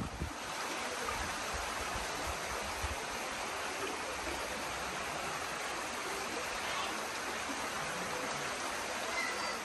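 Running water rushing steadily, like a mountain stream or channel flowing nearby: an even hiss with no breaks.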